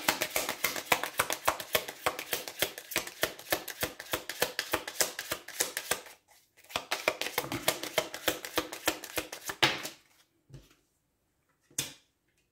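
A deck of Lenormand cards being shuffled by hand: a long run of rapid card clicks with a brief break about six seconds in, then more shuffling until about ten seconds in. Near the end come two light taps as a card is laid on the wooden table.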